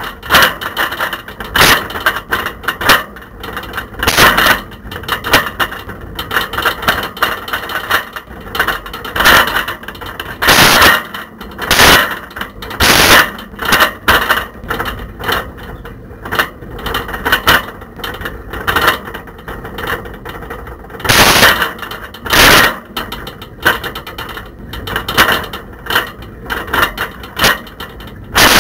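Camera rattling and clattering loose in a bicycle basket while riding, with irregular sharp knocks over a steady road rumble. The rider calls it really rattly and noisy.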